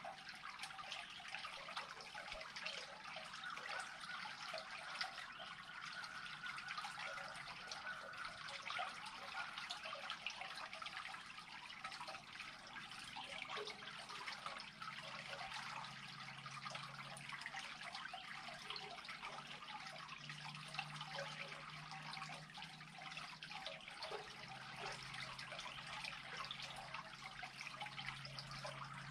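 Water trickling steadily as a pool drains into an unclogged culvert.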